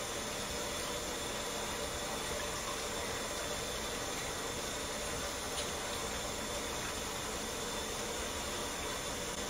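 Bathtub faucet running steadily, water pouring from the spout into a filled tub with an even hiss.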